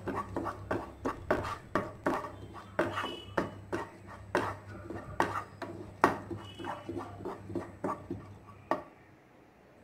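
Wooden spatula scraping and knocking against a nonstick frying pan as soaked basmati rice is stirred and fried in ghee, several strokes a second, stopping near the end.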